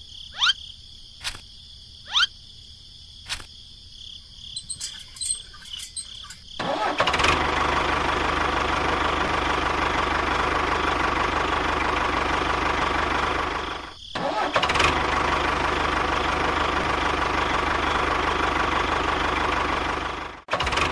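An engine running steadily, starting about seven seconds in and cutting out briefly around fourteen seconds. Before it there are only a few short chirps and clicks.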